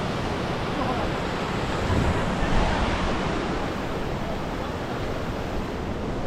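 Steady rushing of a hill stream's flowing water, an even hiss that swells slightly a couple of seconds in.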